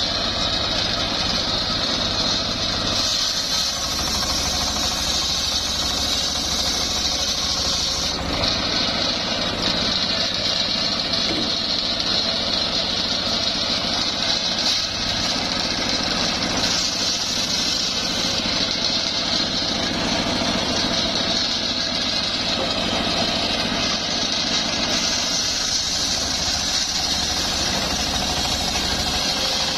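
Homemade circular sawmill running steadily under engine power while sawing coconut palm wood, a constant mix of engine drone and high blade noise.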